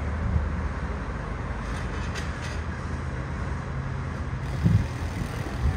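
Steady low engine drone over an outdoor rumble, with a brief low thump about three-quarters of the way through.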